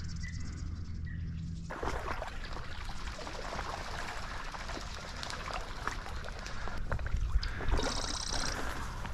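Water sloshing and dry cattails rustling and crackling, as of someone wading through a flooded marsh. It follows a steady low hum in the first second and a half, and the loudest splashes come about seven to eight seconds in.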